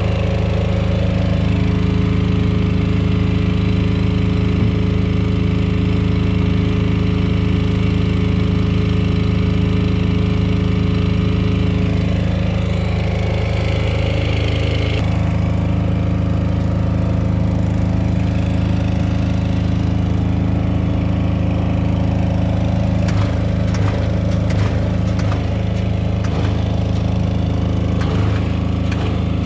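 Rebar bending machine running with a steady, even machine hum. Its tone shifts about halfway through, and a series of sharp clicks comes in the last few seconds.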